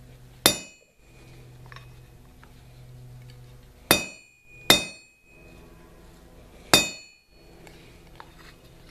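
Four hammer blows on a hand-forged coil-spring cold chisel as it cuts through a quarter-inch round steel bar on the anvil. Each strike is a sharp metallic clink that rings briefly and fades. Two blows come close together near the middle. The chisel is biting into the steel, a sign that its edge is hardened and tempered properly.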